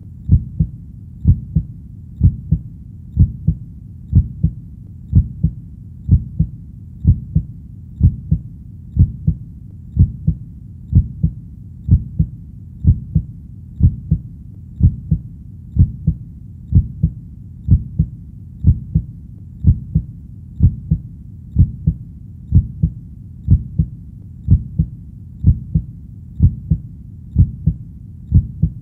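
Steady heartbeat, a low double thump (lub-dub) repeating evenly about once a second.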